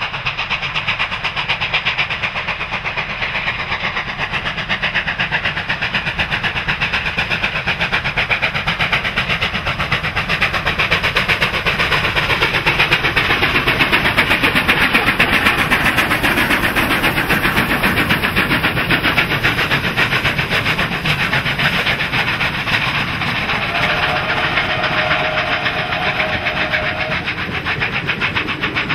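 Two C38 class 4-6-2 Pacific steam locomotives, 3801 and 3830, double-heading a passenger train and working hard, their exhaust beats coming in a rapid, continuous chatter with hissing steam. The sound grows to its loudest as the locomotives pass about halfway through, then eases as the carriages roll by.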